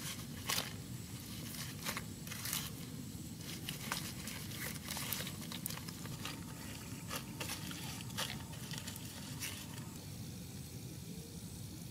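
A hand kneading chopped chili, garlic and salt into raw pig liver on a banana leaf: soft wet squishing and rustling with irregular sharp crackles, fewer of them near the end.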